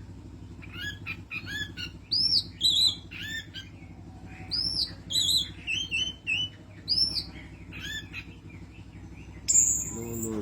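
Orange-headed thrush (anis merah) singing a run of short arched, high chirping notes, repeated about twice a second with pauses, then a louder high whistle near the end, over a steady low hum.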